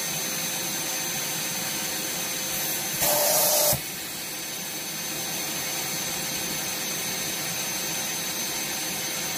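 Wet/dry vacuum cleaner running steadily, with a thin high whine over its motor noise. About three seconds in, a louder hissing rush lasts under a second and ends in a sharp click.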